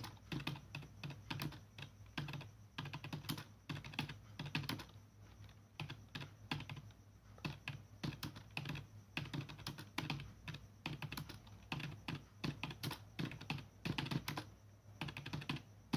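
Computer keyboard being typed on in a quick, uneven run of key clicks, a touch-typing drill at about 40 words per minute.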